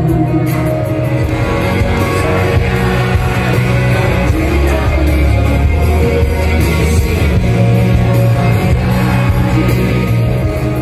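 Live band music with a male lead vocal singing over keyboards, guitar and bass, played on a concert stage.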